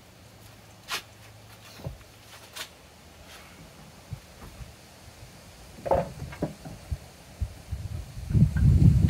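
Handling noises from a person moving around a vehicle's bare floor and lying down on the ground beside it: a few light clicks and knocks, then a low rustling and scraping, loudest near the end.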